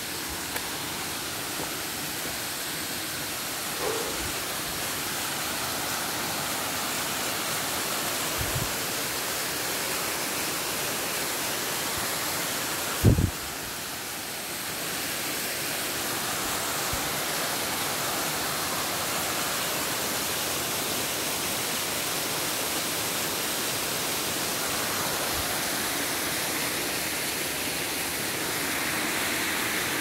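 Small waterfall and mountain stream rushing steadily over rocks, with a few short low thumps, the loudest about thirteen seconds in.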